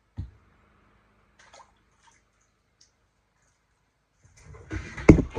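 Handling noises: a single low thump just after the start, then a cluster of knocks and rustling near the end, the loudest a heavy knock.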